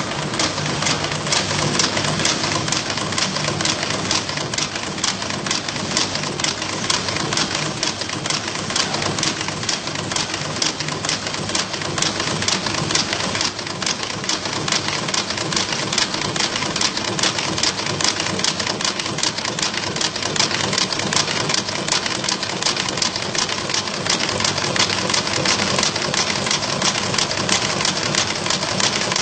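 Side-cut anchor chain making machine running steadily, its tools forming wire into chain links with a rapid, continuous metallic clatter.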